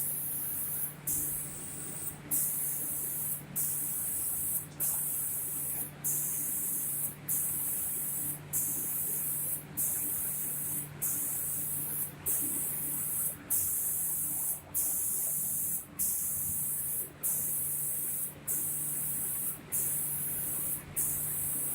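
SPD2500C automatic door spraying machine running: a steady high spray hiss that cuts out briefly about every second and a quarter, over a steady low machine hum.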